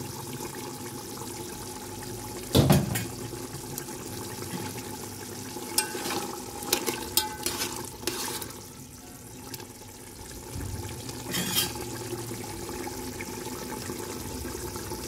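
A pot of chicken stew in sauce bubbling as it cooks, with a utensil stirring it. The utensil knocks loudly against the pot once about two and a half seconds in, clicks several times between six and eight seconds, and knocks once more near eleven and a half seconds.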